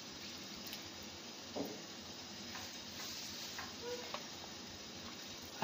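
A spoon working through sauced nouasser pasta in a metal pan, with a few light knocks and clicks against the pan over a steady hiss.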